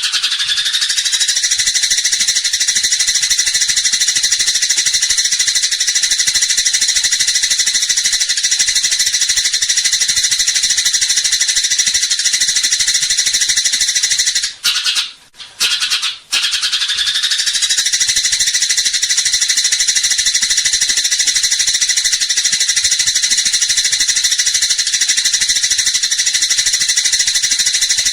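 Eurasian tree sparrow giving its rapid, unbroken fighting chatter: a loud, dense, high-pitched stream of calls. It breaks off twice, briefly, about halfway through, then resumes.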